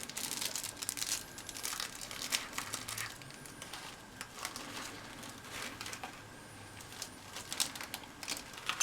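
Packaging being handled: plastic and foam crinkling and rustling in irregular bursts, with small clicks, as a diecast model airplane is unpacked from its box.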